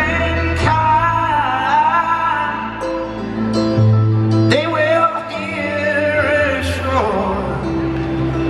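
Live music recorded from the crowd in an arena: a man singing a slow song, with acoustic guitar and long held low notes underneath. The sung phrases swell twice, near the start and again about halfway through.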